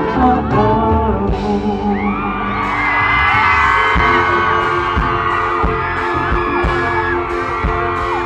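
Live pop song with a singer over an amplified band; from about two seconds in, a crowd of fans screams over the music.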